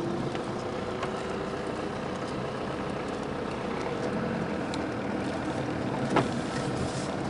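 Car engine and road noise heard from inside the cabin of a moving car, steady and even.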